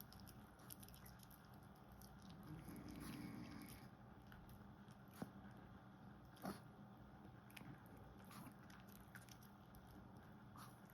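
Faint chewing by a small animal, scattered small clicks with two sharper clicks a little past the middle, at a very low level.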